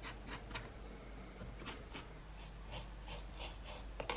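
A stiff paintbrush dry brushing a sand-textured cardboard walkway, giving a soft run of quick scratchy strokes, several a second.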